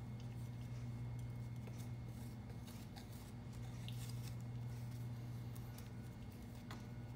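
Thin metal spatula scraping and pressing a linseed-oil and powder paste against a glass plate, giving faint, short scrapes and ticks: the rub-out stage of an oil absorption test, working the oil into the powder. A steady low hum runs underneath.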